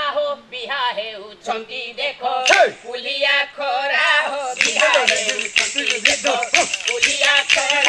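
Male voices singing a folk chant. About two-thirds of the way in, the wooden dashkathia hand clappers start a quick, steady clacking rhythm, with ankle bells jingling.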